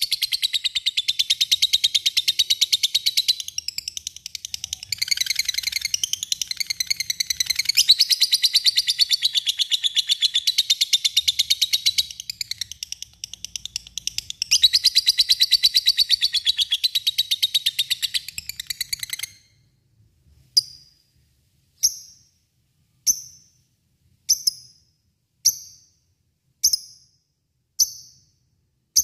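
Lovebird's long, shrill chattering trill ('ngekek'), a rapid unbroken run of notes with two brief dips, lasting about nineteen seconds. It then switches to single sharp chirps about once a second ('ngetik').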